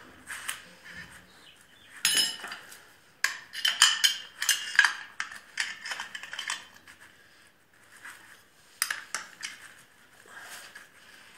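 Metal tools and engine parts clinking and knocking in irregular clanks while a nut on the mower engine is tightened. The clanks are loudest from about two to five seconds in, with another cluster near nine seconds.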